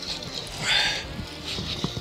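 A hooked salmon thrashing at the surface in the shallows, with a short burst of splashing water a little over half a second in.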